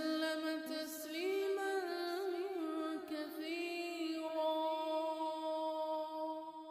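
Background music: a solo voice singing unaccompanied in a chant-like style, with ornamented gliding phrases that settle into one long held note.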